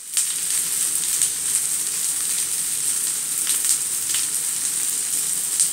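Boiled, crushed potatoes and sliced onion sizzling in hot oil in a frying pan: a steady frying hiss with a few light crackles a little past halfway.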